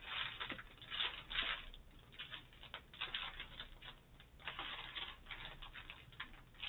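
Small plastic bags of diamond-painting drills rustling and crinkling as they are handled and sorted through, in irregular short bursts.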